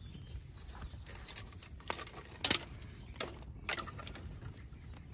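A small campfire of dry sticks being tended by hand: a few sharp, irregular snaps and clicks over a low steady rumble.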